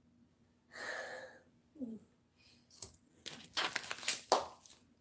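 Crinkling and clicking handling noise as craft supplies are picked up and moved about, in a dense run of crackles over the second half. A short breathy exhale comes about a second in.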